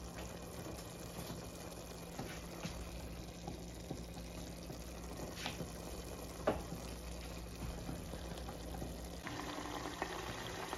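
Ground beef with onions and green peppers simmering and sizzling in its own rendered fat in a frying pan, with scattered pops.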